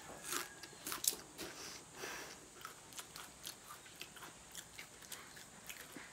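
Chewing crunches of a crisp fried cassava chip (kab-kab): a few sharper crunches in the first two seconds, then softer, regular chewing crunches about three a second.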